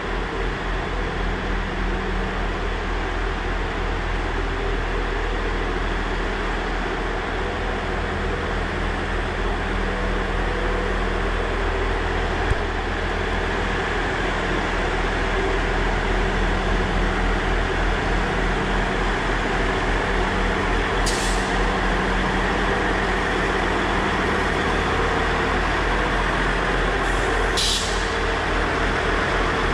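Diesel multiple-unit trains standing with engines idling, a steady low hum. Two short hisses of air release from the train's brakes, about two thirds of the way through and again near the end.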